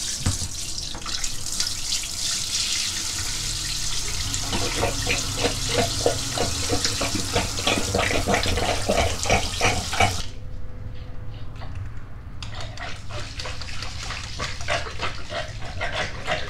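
Water running and draining through a shower-tray drain, with a low steady hum joining about three seconds in. The water sound drops away briefly about ten seconds in, then returns.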